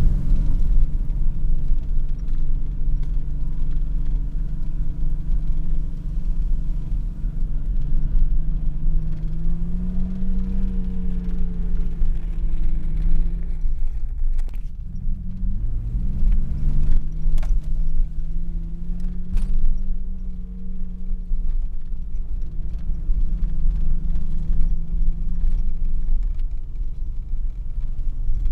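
Mitsubishi Pajero 4x4 engine heard from inside the cab while climbing a rough chalk track, under a heavy low rumble. The revs rise around ten seconds in, drop away around fourteen seconds, then build again and hold steady. A few sharp knocks come from the bumpy ground.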